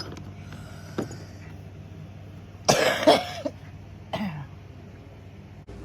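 A person coughing, two loud coughs close together about three seconds in, then a smaller one a second later.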